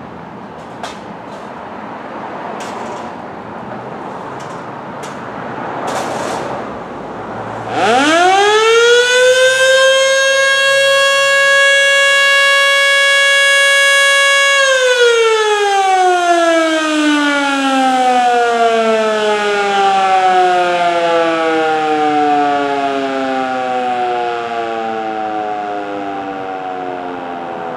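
Federal Signal Model 2 electromechanical siren sounding its daily noon blast. It winds up quickly about eight seconds in, holds a steady tone for about five seconds, then cuts off and winds down slowly, its pitch still falling at the end.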